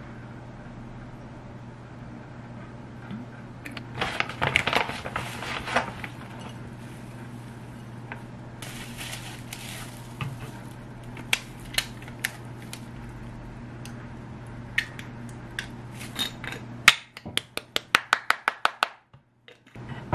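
Plastic packaging crinkling and rustling in two bursts, with scattered light clicks and taps, all over a steady low hum. Near the end comes a quick, even run of about a dozen sharp clicks.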